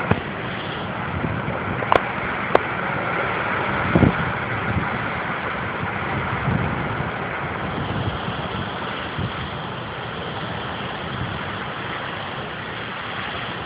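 Strong hurricane wind rushing steadily through trees and buffeting the microphone. A few sharp knocks come about two, two and a half and four seconds in.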